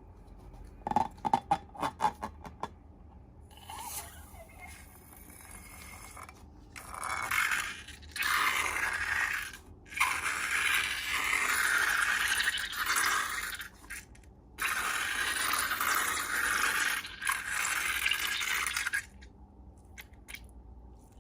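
Scraping from slime making: a quick run of taps about a second in, then long stretches of scraping broken by short pauses.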